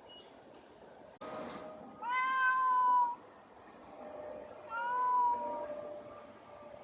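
A cat meowing twice: a drawn-out meow of about a second, then a shorter one.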